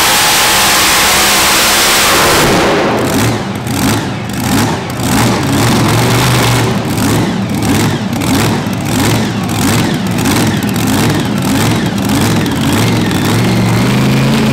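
Supercharged V8 of a mini unlimited pulling tractor running flat out, then cutting back about two seconds in to a loud, lumpy, uneven idle with a rhythmic lope as the pull ends.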